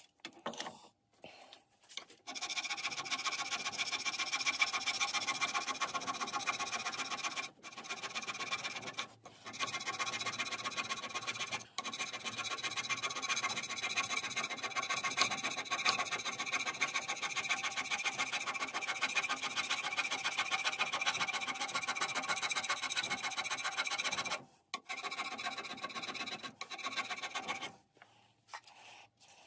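Hand scraper working the cast-iron toolpost seat of a lathe topslide in quick, continuous strokes, scraping down the high spots to bring the seat into flat contact. The strokes start about two seconds in, pause briefly a few times, stop for a moment about 24 seconds in, then run on briefly before stopping near the end.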